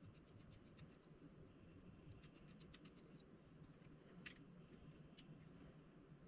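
Near silence with faint small clicks and ticks from a precision Phillips screwdriver and tiny screws being worked out of a GoPro Hero 7's internal board: a quick run of light ticks about two seconds in, then a single sharper click a little past the middle.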